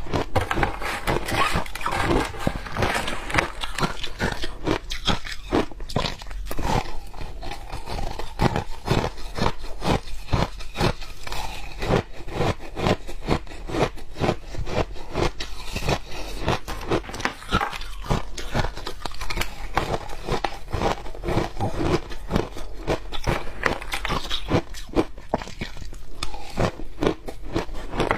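Crushed, powder-coated ice being bitten and chewed close to the microphone: a dense, unbroken run of crisp crunches, several a second.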